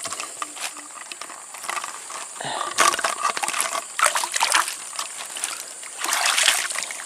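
Shallow stream water splashing and sloshing as a wire-mesh fish trap is handled and lifted, in irregular bursts, loudest about three, four and six seconds in.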